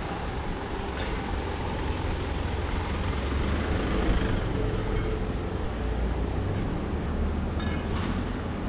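City street noise: a steady low rumble of road traffic, with a few faint clicks near the end.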